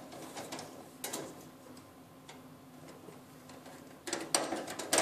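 Pliers clicking and tapping against the sheet-metal tab of a dryer's pulley mounting bracket as the tab is bent back down: a few scattered clicks, then a quick run of sharper, louder clicks near the end.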